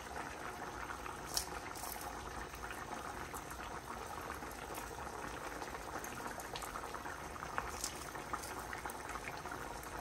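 Fish curry with potatoes and green chillies simmering in a pot on a gas hob: a steady bubbling hiss with a few small pops scattered through it.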